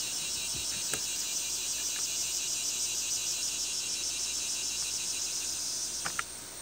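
Crickets chirping in a steady, pulsing chorus, with a couple of faint sharp clicks near the end.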